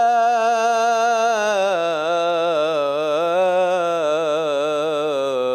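A male mubtahil chanting an Islamic ibtihal solo, with no instruments, holding one long melismatic note. The note wavers in quick ornamental turns, steps down in pitch about two seconds in and breaks off at the end.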